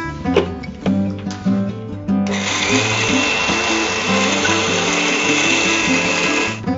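Electric mixer grinder (mixie) running as it grinds roasted spices into sambar powder: a loud motor whir with a steady high whine. It starts abruptly a little over two seconds in and cuts off near the end, over background guitar music.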